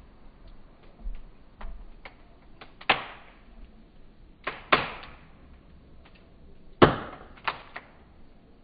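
Fireworks going off: about six sharp bangs, each with a short echoing tail, the loudest about three, five and seven seconds in, over faint small crackles.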